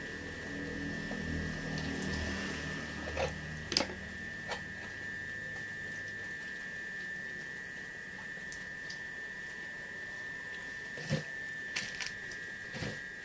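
Scattered small clicks and handling noises as the twisted wire pairs of a network cable are untwisted by hand, over a steady high-pitched tone. A low rumble fades out about halfway through.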